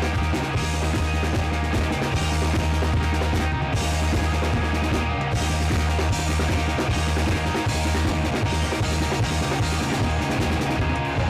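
Rock music with drums, bass and guitar playing steadily.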